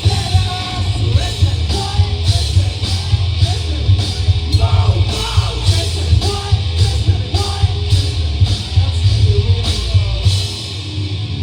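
A live rock band playing loud, with a yelled singing voice over heavy bass and a steady drum beat of about two hits a second. The bottom end of the bass drops away near the end.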